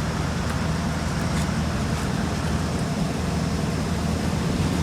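Heavy road-paving machinery running steadily, with a low, even engine hum.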